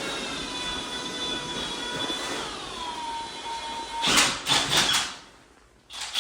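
Power drill with a mixing paddle running steadily, spinning in a bucket of water to clean off tile mortar. Its motor whine drops slightly in pitch about two and a half seconds in and stops after about four seconds, followed by a few loud, rough knocks and splashes.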